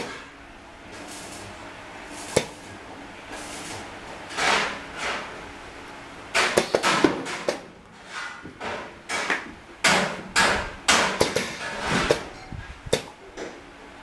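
Irregular clacks and clunks of a sandal strap threading machine's metal clamp arms and jig being worked by hand, with a few short noisy bursts; the knocks come sparsely at first and thicken into a busy run from about halfway.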